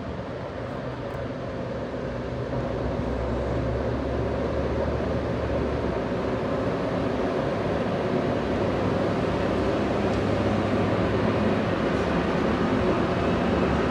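A pair of Freightliner Class 90 electric locomotives running together past on the line, a steady low hum with rumble that grows louder over the first few seconds as they draw level.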